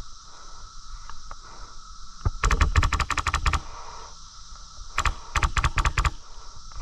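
Airsoft electric rifle firing two bursts of rapid shots, about nine a second, each lasting about a second, with a pause of about a second and a half between them.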